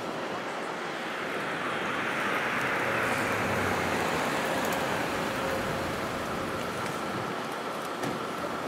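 White Nissan Elgrand minivan driving slowly past, its engine and tyre noise rising to a peak about three seconds in and then easing off.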